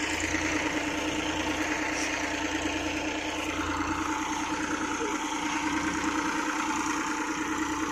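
Massey Ferguson 245 DI tractor's three-cylinder diesel engine running steadily under load, pulling a heavily loaded trolley.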